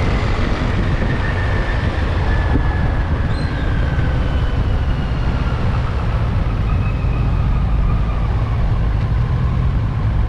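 Motorcycle riding along a road: steady engine and wind and road rush, with a faint whine that slowly falls in pitch.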